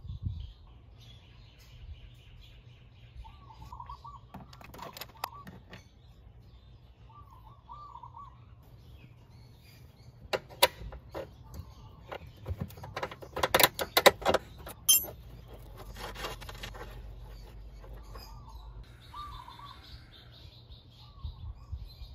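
Clicks and clinks of a 10mm wrench on the nut by a scooter's rear wheel as it is undone, in scattered bursts with the busiest run about ten to fifteen seconds in. Small birds chirp now and then.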